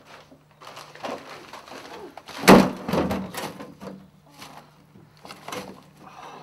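A series of irregular knocks and clatters, like wood and objects being handled and bumped, the loudest about two and a half seconds in, over a faint steady low hum.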